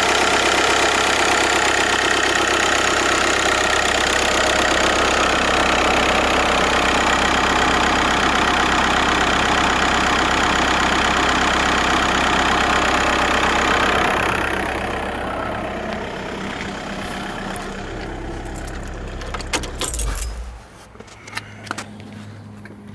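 VW Golf 5 1.9 TDI four-cylinder diesel engine running steadily at idle. The noise drops about two-thirds of the way in, then the running sound stops after about 20 seconds, followed by a few sharp clicks.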